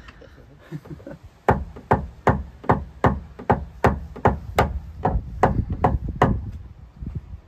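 A hammer striking a knockdown tool against a Ford Escort Cosworth's door panel in a steady run of about a dozen sharp taps, roughly two and a half a second, starting about a second and a half in. This is paintless dent removal: tapping down the raised metal around a door ding that has been pushed out from behind.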